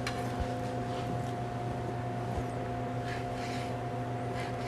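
A few soft strokes of a chef's knife slicing sea cucumber meat on a plastic cutting board, over a steady low machine hum in the kitchen.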